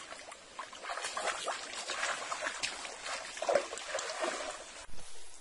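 Irregular splashing and sloshing of water as feet wade through a shallow muddy stream and a mosquito net is hauled dripping out of it.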